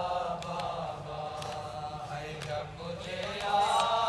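A group of men chanting an Urdu noha, a Shia lament, together in a slow melody with long held notes. It swells louder about three seconds in.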